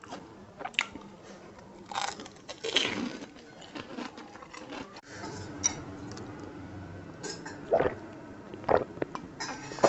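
Close-up mouth sounds of crisp fuchka (pani puri) shells, dunked in tamarind water, being bitten, crunched and chewed in a run of irregular sharp crackles. Near the end come a few gulps of water from a glass.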